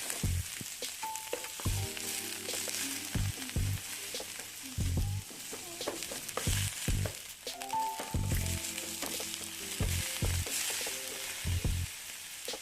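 Vegetables sizzling in hot oil in a sauté pan as they are stir-fried, with a spatula knocking and scraping against the pan again and again.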